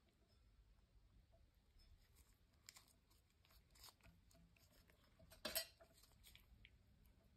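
Near silence with faint rustles and small clicks from gloved hands handling stripped lamp wires. One sharper click comes about five and a half seconds in.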